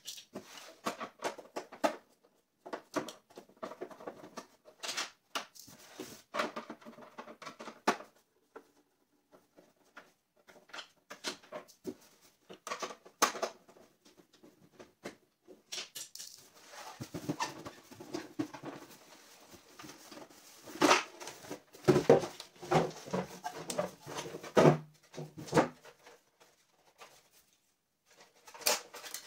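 Screws being taken out of a CRT television's plastic rear casing with a screwdriver, with scattered clicks and taps of the tool, screws and plastic. About halfway through, a louder, denser run of knocks and rattles follows as the back cover is worked loose and pulled off the set.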